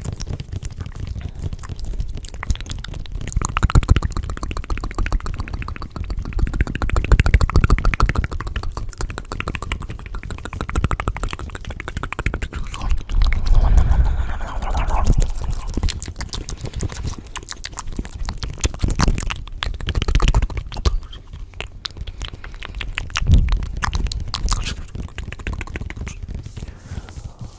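Layered ASMR sound mix: low rumbling swells that rise and fall every few seconds under dense fine crackling and clicking.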